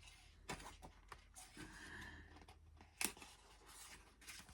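Picture-book pages being handled and turned: faint paper rustles and a few light clicks, the sharpest about three seconds in.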